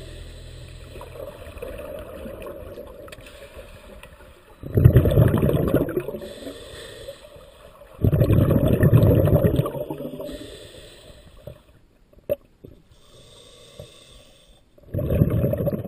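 Scuba diver breathing on an open-circuit regulator underwater: three loud gurgling bursts of exhaled bubbles, about 5 s in, about 8 s in and near the end, with softer hissing inhalations between them.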